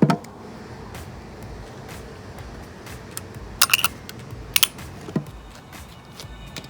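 A few sharp metallic clinks and clacks of hand tools and bolts being handled on an engine block during oil pan removal. There is one at the start, a quick cluster a little past halfway, and two single clinks after it.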